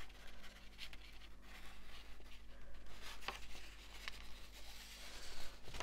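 Sheets of printed paper rustling faintly as they are handled, with a few light crackles.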